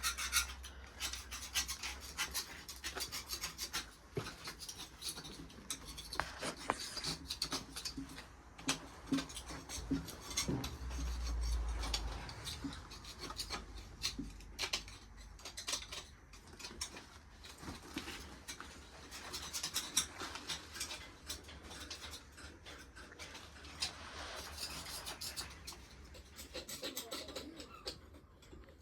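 Hand scraping and scrubbing of caked old oil and soot on a Rover V8 engine, in many irregular short strokes.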